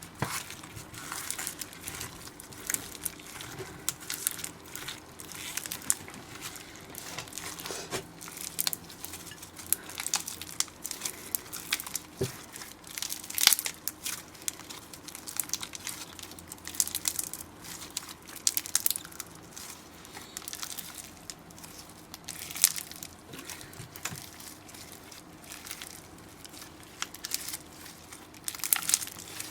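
Slime being worked by hand, giving a steady run of irregular crackling, crinkling pops with no regular rhythm.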